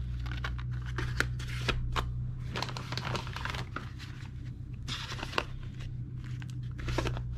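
Cardboard boxes of rifle cartridges being slid and pushed into place in a steel .50 cal ammo can: cardboard scraping against cardboard with short light knocks. A steady low hum runs underneath.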